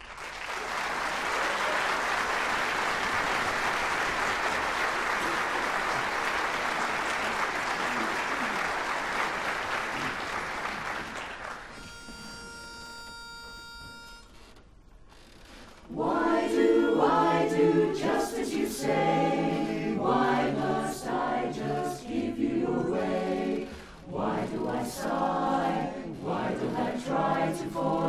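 Audience applause for about eleven seconds, then a short steady note blown on a pitch pipe. About sixteen seconds in, a mixed barbershop chorus starts singing a cappella in close harmony.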